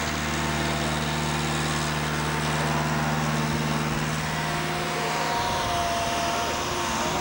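Truck engine running steadily with a low drone. About five seconds in the drone fades and a thinner, higher whine comes in.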